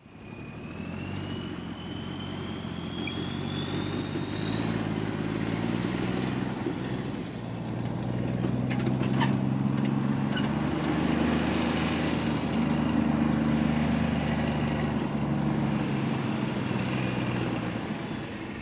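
The engine of hay-harvest machinery running steadily under a high whine. The whine climbs slowly in pitch over the first half, holds, and falls away near the end.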